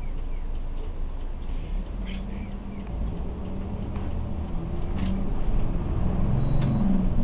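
City bus engine heard from inside the cabin, running as the bus turns and pulls away; its note grows stronger and louder from about halfway through as the bus picks up speed. A few short sharp clicks or rattles sound along the way.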